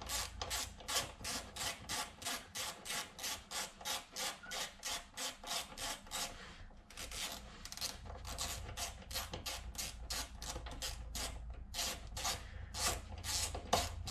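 Ratcheting driver with a T40 Torx bit clicking in quick, even strokes of about four a second as a fastener is backed out. After a short pause about halfway, the clicking resumes in less even strokes.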